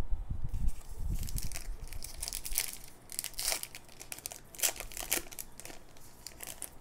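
A trading card pack's wrapper being torn open and crinkled in the hands, a run of sharp crackles, with a few low bumps of handling near the start.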